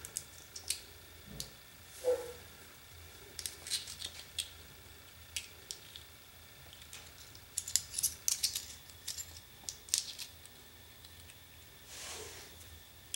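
Light, scattered clicks and clinks of small metal parts and tools being handled as a small impact driver and its screw are put back together, busiest about eight seconds in.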